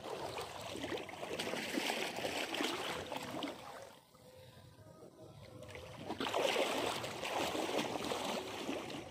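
Water sloshing and splashing as someone wades through a shallow pond, in two spells with a quieter lull of about two seconds in the middle.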